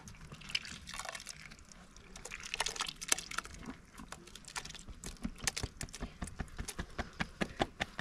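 Thick buttermilk and curds dripping and spattering from the neck of a hanging bag into a full aluminium pot of buttermilk. The drips come more often and more regularly in the second half, about three a second.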